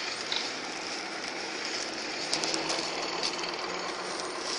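Steady outdoor street noise, with the faint low hum of a distant vehicle engine rising about two seconds in and fading near the end.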